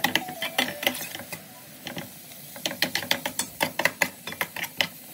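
Metal spatula scraping and clicking against an aluminium frying pan while diced ham, bacon and onion are stirred in oil, in quick irregular strokes with a short pause about two seconds in.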